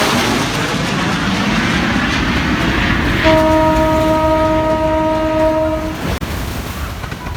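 Train running with a low rumble under a loud rushing noise that fades over the first few seconds, then the train horn sounds one steady blast for about three seconds.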